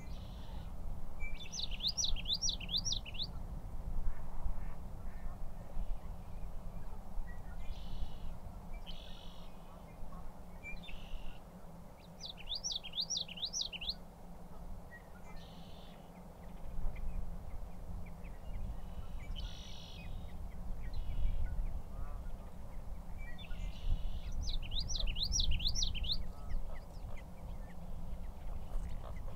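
Male common yellowthroat singing its rolling, repeated-phrase song three times, about ten seconds apart, with short bird calls in between and a low rumble underneath.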